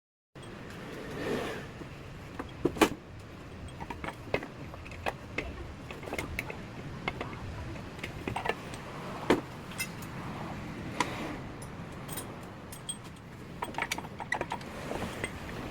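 Metal hand tools and parts clinking and clanking irregularly, a couple of sharper knocks among them, over a steady low background hum.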